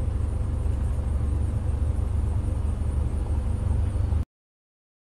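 Steady low rumble inside a car's cabin, cutting off suddenly about four seconds in.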